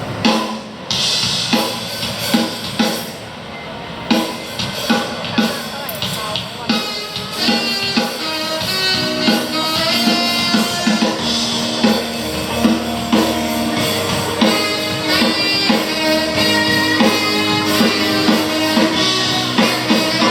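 Live band playing at a sound check: a drum kit keeping a steady beat with guitar, and more held pitched notes joining in after about six seconds.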